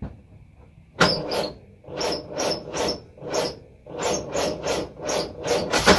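Ford side-valve four-cylinder engine being turned over by its starter motor, starting about a second in: a slow, rasping cranking in pulses about two or three a second, labouring on a weak battery, and the engine does not fire.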